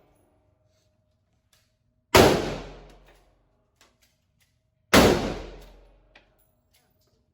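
Two gunshots from a high-powered gun about three seconds apart, each followed by an echo that dies away over about a second.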